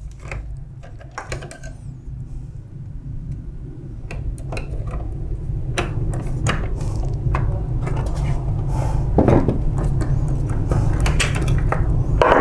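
Irregular clicks, knocks and clatter of hard plastic and metal copier parts being handled and unscrewed as a drum cleaning unit is taken apart, busier in the second half. Under them runs a steady low hum that grows louder.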